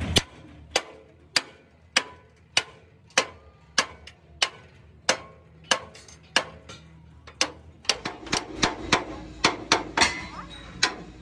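A hand hammer striking a steel truck chassis frame, each blow sharp with a brief metallic ring, at a steady pace of about one every 0.6 s. About 8 s in the blows come faster, around three a second.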